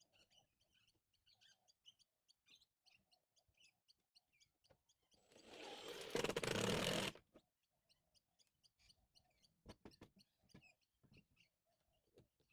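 Faint bird chirps, with a burst of noise lasting about two seconds a little before the middle and a few faint clicks later.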